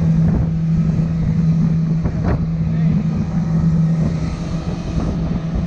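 Yamaha Superjet jet ski's two-stroke engine running at a steady speed, with wind on the microphone.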